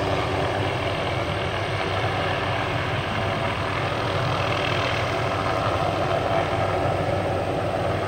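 Small helicopter stringing power-line cable, its engine and rotors making a steady drone.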